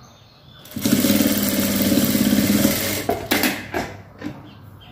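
Jack industrial sewing machine running at speed for about two seconds, stitching a short seam, then stopping, followed by a couple of short clicks.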